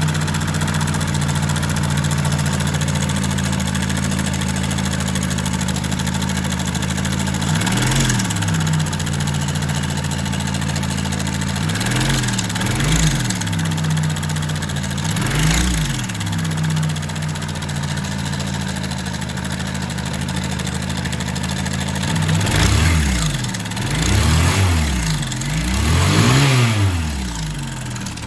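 Honda motorcycle engine idling steadily, with short throttle blips: single ones at first, then a quick series of four or five near the end. It is an engine with a noise that the mechanic puts down to poor lubrication and a slack timing (cam) chain.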